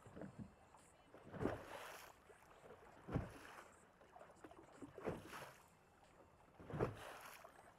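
Small waves slapping against a boat's hull, four soft slaps roughly every two seconds over a faint wash of water and wind.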